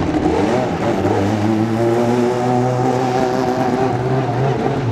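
Group C sports-prototype race car engine running at a steady pitch, its note holding nearly level for several seconds.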